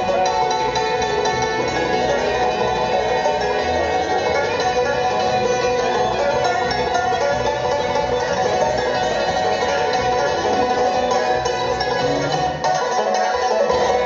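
Bluegrass band playing an instrumental passage: banjo, fiddle, mandolin and acoustic guitars picking together over bass. The bass drops out for a moment near the end.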